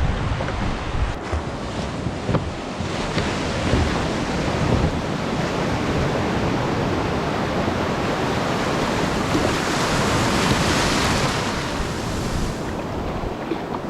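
Ocean surf breaking and washing, with wind buffeting the microphone; a louder rush of breaking water builds about two-thirds through, then falls away.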